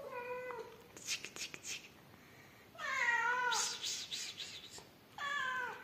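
A cat meows three times: a short call, then a longer, louder, wavering meow about three seconds in, then a short falling meow near the end. Faint brief clicks or rustles fall between the first two calls.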